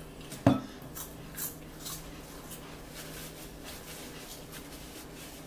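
Light tabletop handling sounds: a sharp knock about half a second in, then a few soft clicks and some rubbing over a low steady hum.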